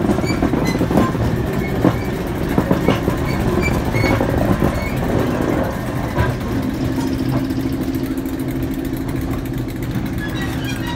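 Class 08 diesel shunter's English Electric six-cylinder engine running as the locomotive moves along the track with a van in tow, with clanks and knocks over the first half. About two-thirds of the way through, a steady hum with a held tone sets in.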